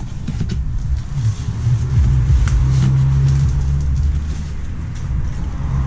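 A loud, steady low-pitched drone with a held low tone, and over it faint rustling as rubber hose and a plastic-bagged part are handled in a cardboard box.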